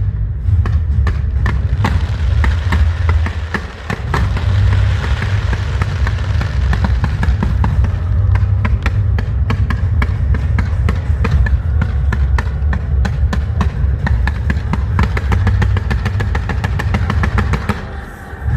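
Fireworks display: dense crackling and popping over a steady low rumble, with a brief lull about four seconds in and again near the end.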